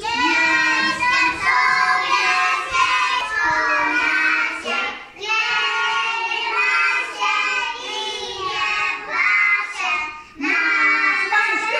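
A group of young preschool children singing a Polish children's song together, unaccompanied, with short breaks between phrases about five and ten seconds in.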